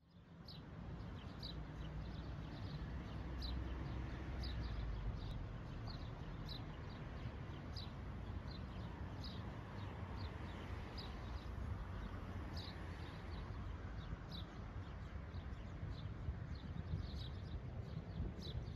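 A small bird chirping over and over, short high notes about twice a second, above a steady low outdoor rumble.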